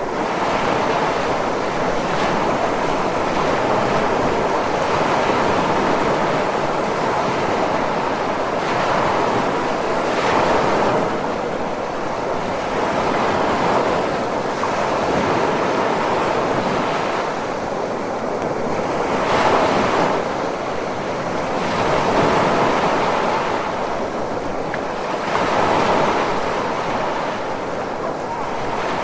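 Ocean surf: a continuous wash of breaking waves, swelling and easing every few seconds, with a few stronger surges.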